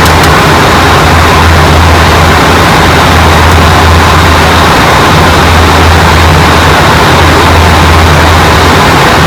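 Airliner cockpit noise: a steady, loud rush of air and engine drone with a deep hum underneath.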